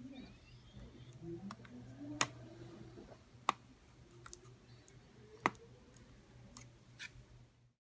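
Sharp clicks from hands and a tool working on the plastic and metal case of a Dell Latitude E5450 laptop, the three loudest about two, three and a half and five and a half seconds in. Under them run a low steady hum and faint rising whines.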